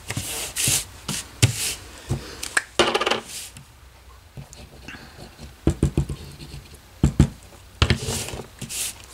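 Hands rubbing and smoothing taped cardstock panels flat on a table, short scratchy rubs of paper under the palms. A few dull knocks about six and seven seconds in as a glue bottle is handled and set against the table.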